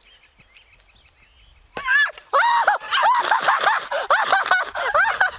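A quiet start, then about two seconds in a burst of high-pitched shrieking laughter breaks out in quick rising-and-falling pulses that keep going.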